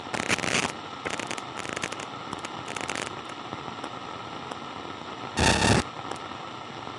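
Walkie-talkie static hiss broken by short bursts of crackling noise: several in the first three seconds, then a louder one about five and a half seconds in.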